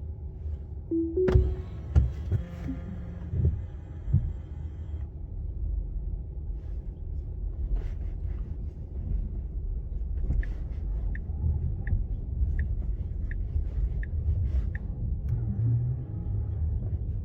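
Tesla Model 3 cabin with a steady low road and motor rumble. About a second in, a short two-note rising chime sounds as Full Self-Driving engages. From about ten seconds in, the turn-signal indicator ticks about seven times, evenly, then stops.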